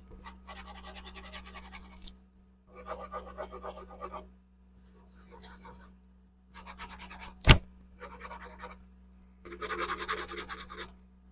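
Bursts of scratchy rubbing, five of them with short quiet gaps between, and one sharp click about seven and a half seconds in.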